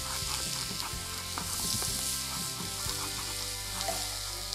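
Chopped onion and garlic sizzling in a hot frying pan, with a wooden spoon stirring them and tapping and scraping against the pan in many short clicks.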